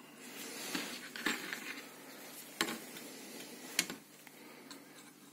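A steel vernier caliper being handled against a radio's metal chassis: four light metallic clicks and clinks over about three seconds, with faint handling rustle between them.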